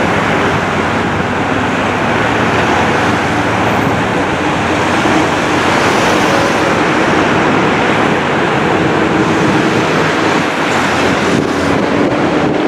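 Boeing 737-700's CFM56 turbofan engines running at taxi idle, a steady rushing jet noise with faint low hums under it.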